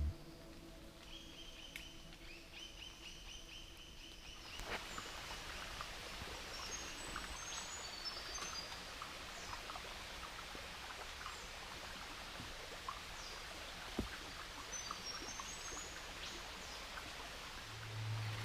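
Rainforest ambience: birds chirping and calling in short high notes. A steady hiss comes in about four seconds in and stays under them.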